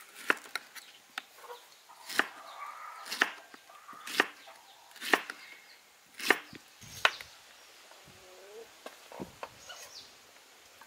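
Large kitchen knife slicing a peeled pineapple on a wooden chopping board, the blade knocking the board about once a second, with lighter taps in the last few seconds.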